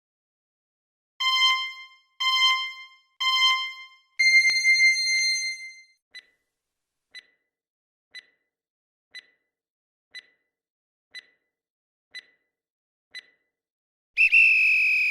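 Quiz countdown timer sound effect. It gives three short electronic beeps a second apart and a longer, higher beep, then ticks once a second eight times. It ends near the close with a louder electronic alarm tone lasting about a second, signalling that the answer time is up.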